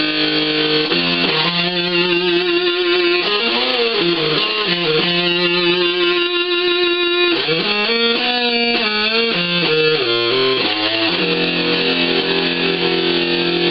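Electric guitar played through the breadboarded fuzz section of a Schumann Two Face pedal, with its NPN and PNP fuzz stages linked together: thick, sustained fuzz-distorted notes, several bent up and down and held with vibrato.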